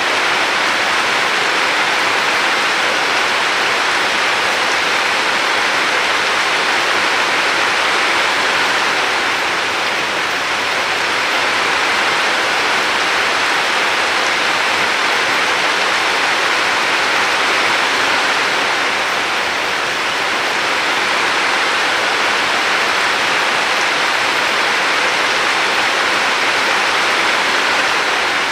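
River water flowing: a steady, even rush that swells and eases slightly every several seconds.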